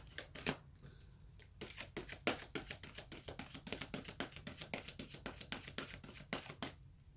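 A tarot deck being shuffled overhand by hand: a quiet, continuous run of quick card slaps and rustles, several a second.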